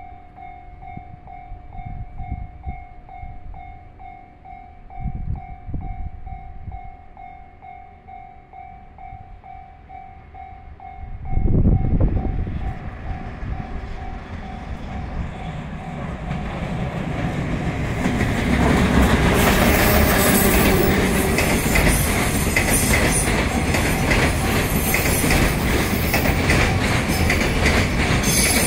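Level-crossing warning bell ringing at about two strokes a second as a JR Freight EF210 electric locomotive approaches. A sudden loud low burst comes about eleven seconds in. The train's noise then builds until the container flatcars are passing close by, wheels clattering over the rail joints.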